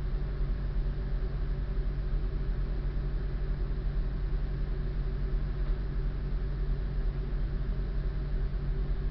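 Diesel train engine idling steadily while the train stands at a station platform, a constant low hum heard from the driver's cab.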